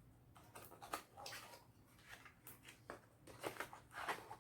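Faint handling sounds of product packaging being opened: scattered light clicks, taps and short rustles of a small box and its contents.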